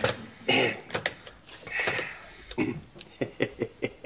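A man clearing his throat with a few short, separate rasps while waiting on the telephone, then a brief murmur near the end.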